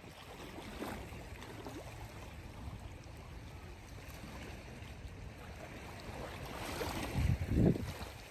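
Small sea waves lapping and sloshing against shoreline rocks, with wind rumbling on the microphone. A louder slosh comes about seven seconds in.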